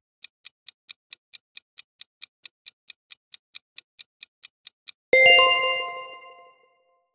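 Quiz countdown-timer sound effect: a clock ticking evenly, about four to five ticks a second for some five seconds, then a bright chime of several ringing tones that fades over about a second and a half, signalling the correct answer's reveal.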